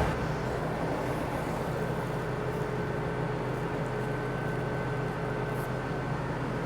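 New Holland T7.315 tractor engine running steadily, an even drone with a faint constant whine over it.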